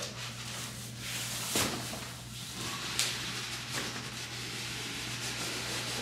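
Large cardboard box rubbing and scraping as it is handled and stood upright, with a couple of knocks about a second and a half and three seconds in.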